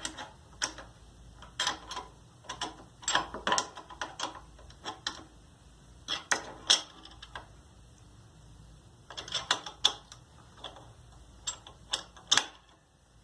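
Metal tools clicking and clinking against exhaust hardware in irregular bursts of sharp clicks, as the newly positioned exhaust is fastened.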